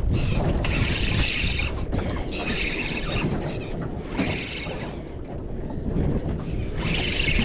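Wind buffeting the microphone over water lapping against a small aluminium boat, with a few short hissing gusts about a second long.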